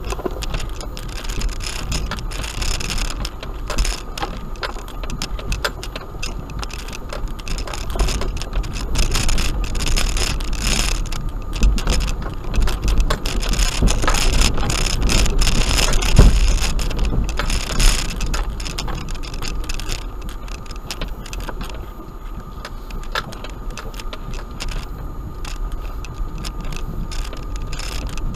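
Suzuki Grand Vitara driving over a rough gravel track, heard from inside the cabin: a steady low rumble with the body and loose items rattling and clicking over the bumps. A few harder jolts come in the middle, the loudest about 16 seconds in.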